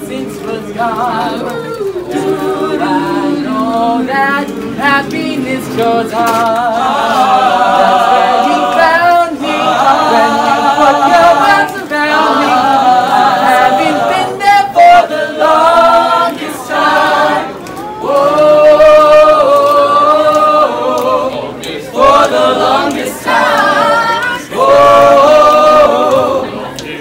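A crowd of young voices singing together unaccompanied, loud and a little ragged, with notes held at length around the middle.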